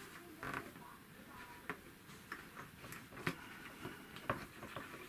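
Faint, irregular small clicks and rustles of hands working a crushed-velvet door panel, feeling for a button hole and fitting a tufting button.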